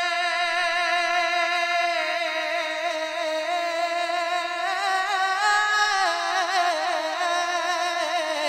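A man's singing voice holding one long note of a manqabat (Urdu devotional song). The note is steady for about two seconds, then breaks into wavering ornamental turns that climb higher around the middle and fall back near the end.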